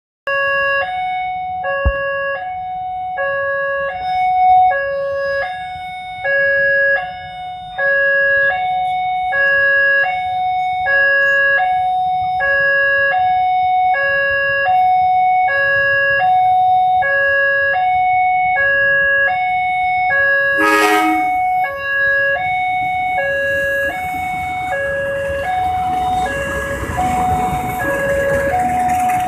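Railway level-crossing warning alarm sounding a repeating electronic two-tone chime, alternating between a lower and a higher note about once a second. In the last few seconds the noise of a passing diesel-electric locomotive and its coaches swells underneath it.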